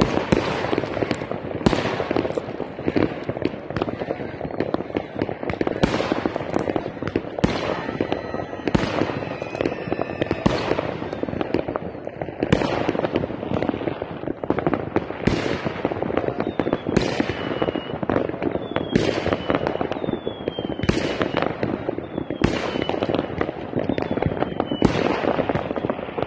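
New Year's Eve fireworks bursting and crackling all around, with sharp bangs every second or two over a constant crackle. Several short falling whistles come in the second half.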